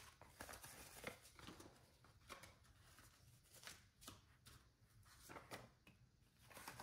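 Faint, irregular rustling and flicking of paper banknotes as they are counted by hand and laid down.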